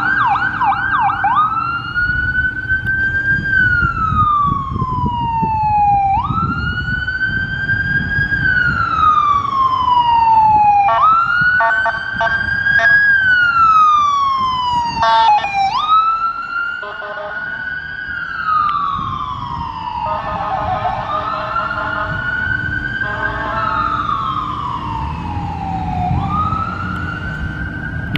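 Ambulance siren on wail, each cycle rising quickly and falling slowly over about five seconds, after a brief fast yelp at the very start. Several short bursts of horn honks come through the middle.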